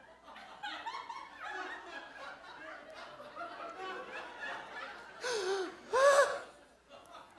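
Audience laughing and chuckling, many scattered voices at once, with a performer's mock sobbing wails breaking out twice, louder, near the end.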